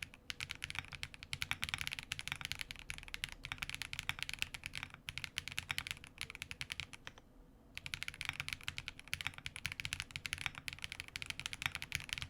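Fast typing on a Link65 mechanical keyboard with lubed Green Jacket linear switches, PBT keycaps, an aluminium plate, and plate and case foam: a dense run of keystrokes with a short pause about seven seconds in.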